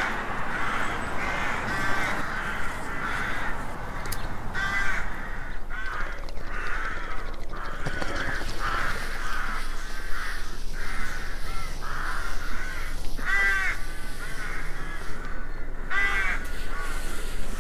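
Crows cawing over and over, short harsh calls coming about once a second throughout, over a steady outdoor background hiss.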